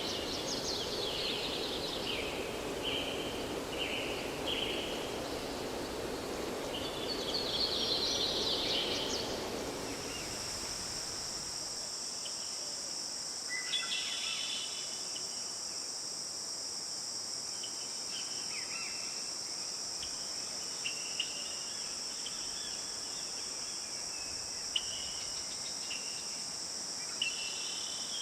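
Woodland ambience: birds chirping over a soft rushing noise. About a third of the way in the rushing fades out and a steady, high-pitched insect drone of crickets or cicadas sets in, with occasional bird calls over it.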